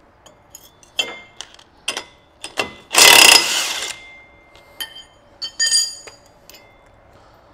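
Cordless impact wrench hammering a sprocket bolt loose for about a second, near the middle. Light metal clinks of wrenches against the steel drive sprocket come before and after it.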